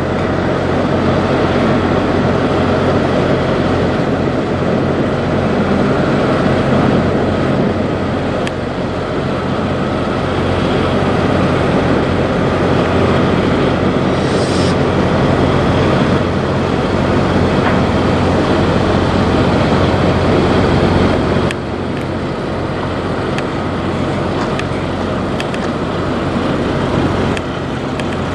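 Peterbilt 389 semi tractor's diesel engine running steadily with a deep, even rumble. A short hiss comes about halfway through.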